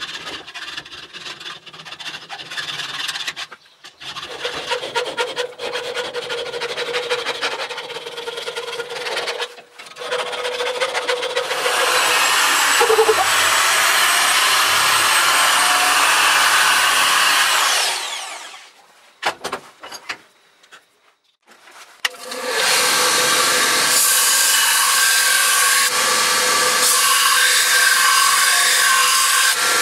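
Round file rasping back and forth through a hole in a steel knife blank held in a vise, in quick strokes. About ten seconds in, a power drill spins a sanding bit in the hole, running steadily, then winds down. A few seconds later a belt grinder runs, grinding the steel blade with a steady hiss.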